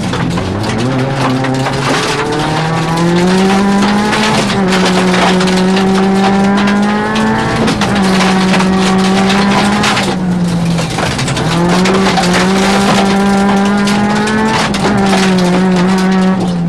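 Rally car engine heard from inside the cockpit, driven hard: its note climbs and holds high, then drops back at each gear change, about five times. Stones from the loose surface clatter against the car throughout.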